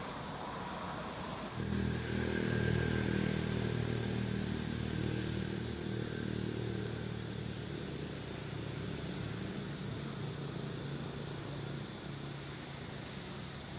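A motor vehicle's engine running nearby, starting suddenly about a second and a half in, loudest over the next few seconds, then slowly fading away.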